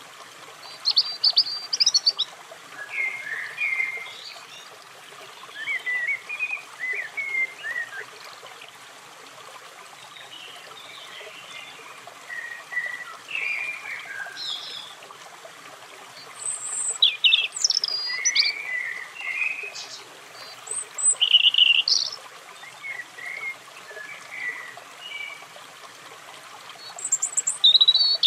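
European robin singing: short, varied phrases of high, thin warbling notes, separated by pauses of a second or more, over a steady background hiss.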